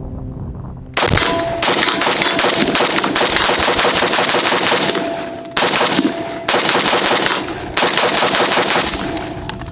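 WBP Jack 5.56 AK-pattern rifle firing rapidly, with the shots packed close together in three strings: a long string starting about a second in, then two shorter ones.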